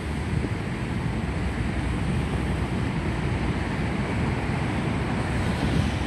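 Heavy typhoon swell breaking on the beach: a steady rushing and low rumbling of surf, with wind buffeting the microphone.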